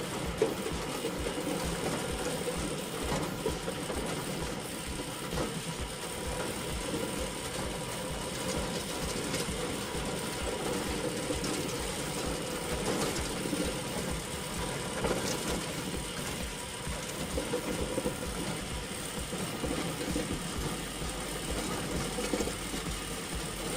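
Small engine of a wheat harvesting machine running steadily, with a fast, even rattling pulse.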